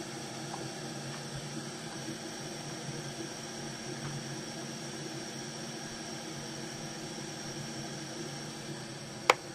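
Steady airy hiss with a faint hum from the workbench, broken by one sharp click near the end.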